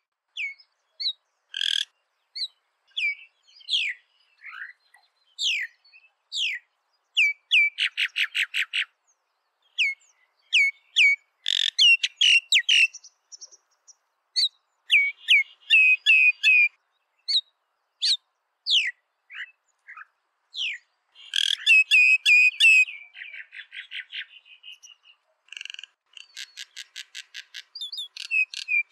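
Common myna calling: a varied, busy run of short whistled and chirped notes and quick sweeps, broken by several fast series of evenly spaced notes at about six a second, one about eight seconds in and more near the end.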